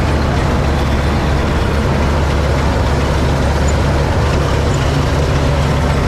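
Massey Ferguson 86 combine harvester running steadily while cutting wheat: a loud, even engine hum under the noise of the working cutter and threshing gear, heard from the driver's seat.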